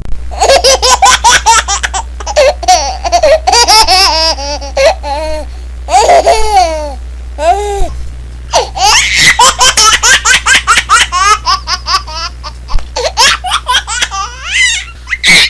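A baby laughing in long runs of quick, high-pitched giggles and squeals, with a short pause about halfway through before a second run of laughter.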